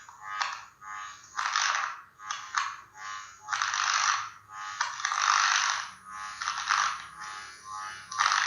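Laptop microphone picking up a harsh electrical buzz that swells and drops out in irregular surges. It is interference from leakage current on the laptop's body, which the owner puts down to the replacement charger lacking a ground connection.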